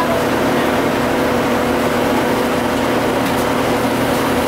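GM TDH-5303 transit bus's two-stroke Detroit Diesel engine running steadily at an even pitch.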